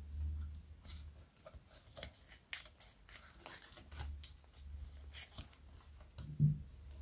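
Thin plastic piping bag filled with clear slime crinkling in the hands, with scissors snipping through its tip partway through. A soft low thump a little before the end is the loudest sound.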